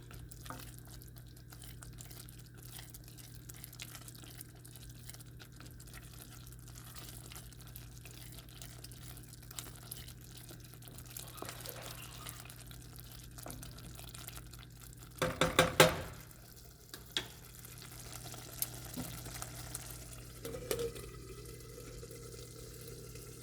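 Kitchen sounds at the stove: a pot of soup cooking with a faint steady sizzle over a low hum. About fifteen seconds in comes a quick rattle of metal clatter, the loudest thing here, followed by a few single knocks.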